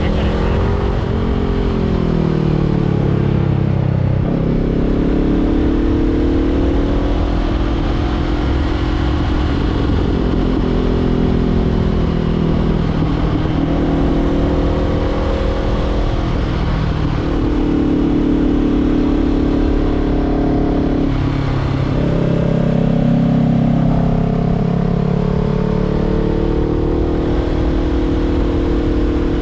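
Honda CBR500R parallel-twin engine through a LeoVince LV-10 exhaust, accelerating through the gears: the engine note climbs, then drops sharply at each upshift several times, before rising again.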